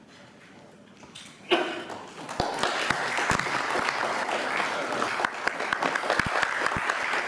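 Audience applauding, starting about two seconds in after a short loud sound, and settling into steady clapping.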